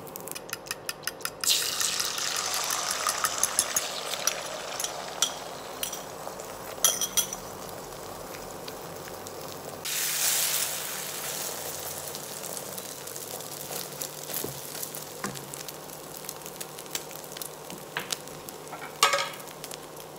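Beaten egg poured into hot oil in a pan, hissing loudly and then settling into a steady frying sizzle. A second pour about ten seconds in sets off another loud hiss. A quick run of light clicks comes just before the first pour, and small utensil knocks come now and then.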